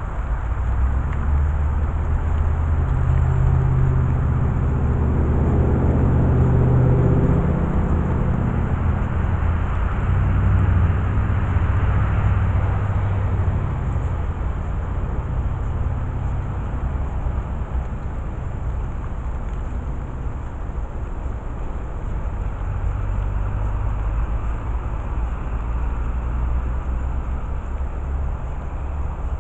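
Motor vehicle passing: a low engine rumble builds, is loudest about four to eleven seconds in, then fades away. A weaker vehicle rumble returns near the end.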